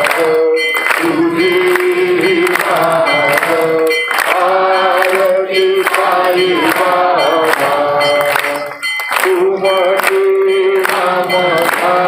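Devotional singing with voices holding long notes over a steady beat of percussion strikes, with a brief break about nine seconds in.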